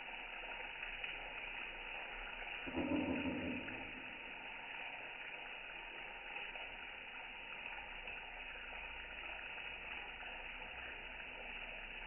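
Tap water running steadily into a sink and splashing onto a bathing sun conure. About three seconds in, a brief, louder low sound lasts about a second.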